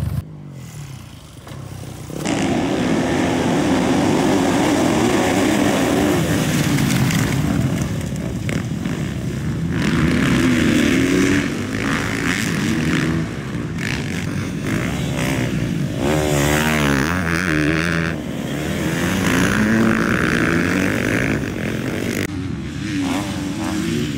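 Motocross dirt bike engines revving as the bikes race over the track, the pitch rising and falling with the throttle. Quieter for about the first two seconds.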